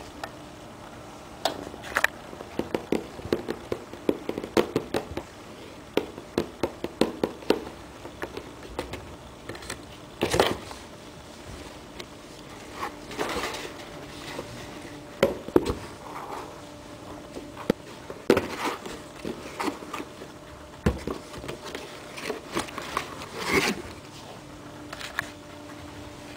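A cat scratching and pawing at a cardboard box: quick runs of small scratches and taps, then several louder scraping rustles of the cardboard.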